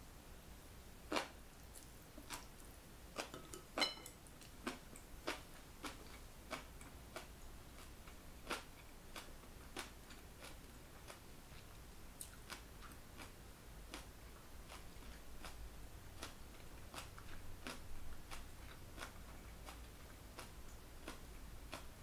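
Close-up chewing of a mouthful of stir-fried beef brisket and bean sprouts: soft, irregular crunches and clicks, the loudest in the first few seconds and thinning out later.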